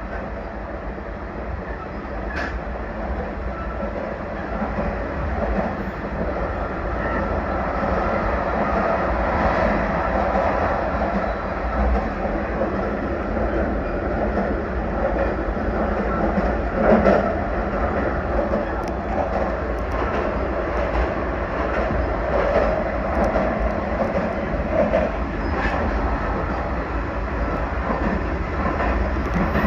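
Limited express electric train (383 series EMU) running along the line: a steady rumble of wheels on rail with a few sharp clacks over rail joints.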